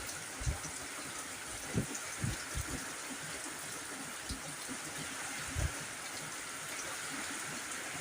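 Heavy rain falling in a steady hiss, with several brief low thumps through the first six seconds.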